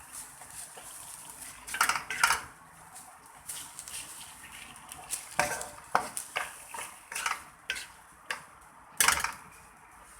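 A metal utensil clinking and scraping against cookware while food is stirred, as a series of irregular clatters with the loudest about two seconds in and again about nine seconds in.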